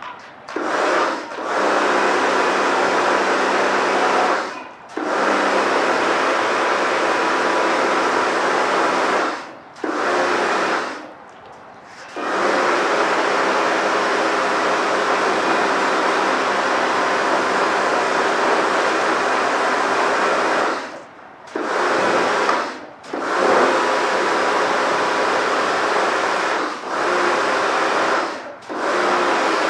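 Karcher K2 compact pressure washer's electric pump running with a steady hum while water sprays, cutting out and starting again as the gun's trigger is released and squeezed: several long spells of spray with short breaks, the longest break about 11 seconds in.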